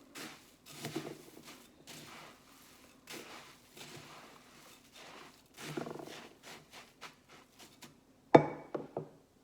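Spoon scraping and stirring through a bowl of rice bubble mixture in irregular strokes, with one sharp knock about eight seconds in, the loudest sound, followed by a few lighter knocks.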